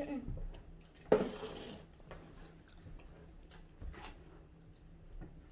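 Faint sounds of children eating at a table: small clicks and handling noises, with one short, sharp burst of noise about a second in.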